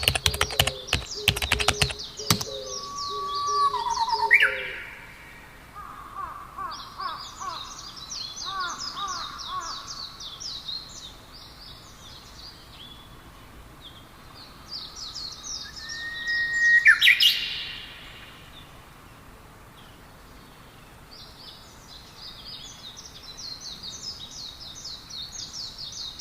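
Computer keyboard typing for about the first two seconds, then songbirds chirping: repeated high, rapid trills, a lower trill series, and a louder whistled note about 17 seconds in.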